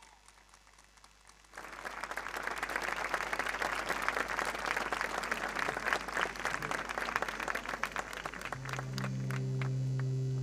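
Crowd applauding, starting suddenly about a second and a half in and thinning out near the end as sustained musical notes begin.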